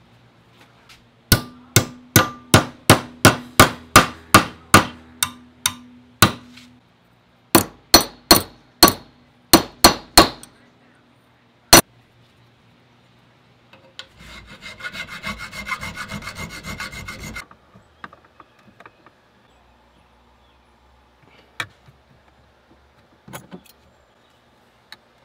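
Hammer blows on a steel bracket clamped in a bench vise: a run of sharp, ringing strikes, about three a second, a second shorter run, then a single blow. Midway through, about three and a half seconds of a metal file rasping on the steel.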